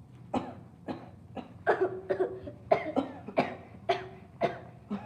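Boys putting on a coughing fit for a pretend illness: about ten short, sharp coughs in quick succession.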